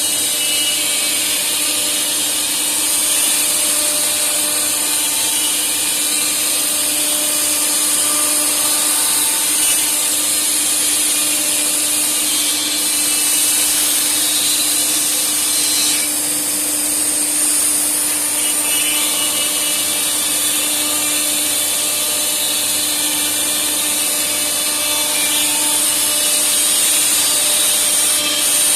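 CNC wood router with automatic tool changer running, its spindle giving a steady high whine over a steady lower hum, with the noise of the cutter working wood.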